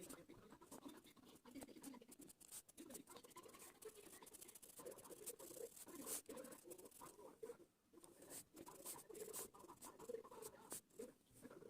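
Faint, irregular scratching and pattering of a rangoli design being drawn by hand.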